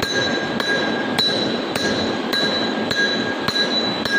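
Hammer striking a metal pipe in a lathe chuck, a steady blow about every 0.6 s with the pipe ringing after each. The pipe is being knocked down to sit flat against the chuck face before it is clamped tight.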